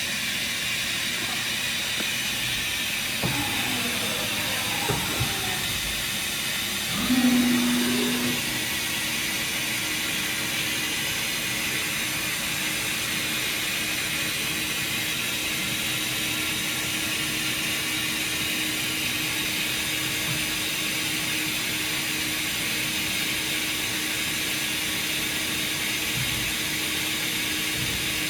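DN Solutions SVM-4100 vertical machining center running an automatic tool length measurement on its tool setter, with a steady hiss throughout. A few motor whines glide in pitch three to five seconds in, a brief louder hum comes at about seven seconds, and a steady hum follows for the rest.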